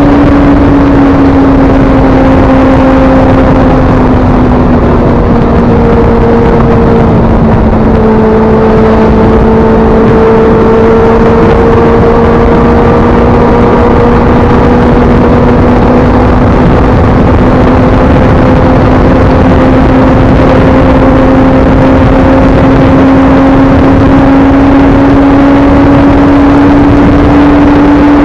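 Benelli TNT600S motorcycle riding at steady speed, heard through an action camera's microphone fitted with a DIY wind-noise cover: a dense, loud rush of wind and road noise over a held engine note. The engine note drops slightly about four seconds in, then climbs slowly for the rest of the run.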